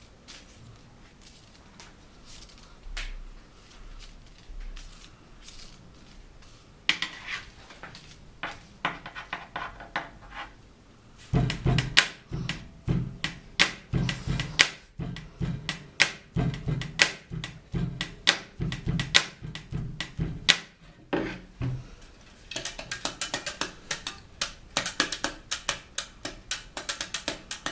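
Rhythmic knocking on a school desk: a few scattered taps, then a steady beat from about seven seconds in, with deep thumps and sharp raps alternating, changing near the end to a quick run of light taps.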